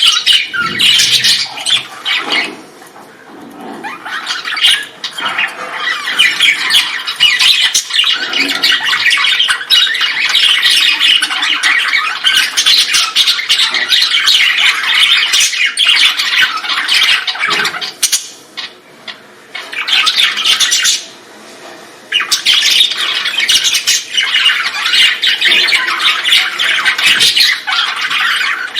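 A colony of birds squawking and chattering all at once in a dense, continuous din, which falls away briefly twice before starting up again.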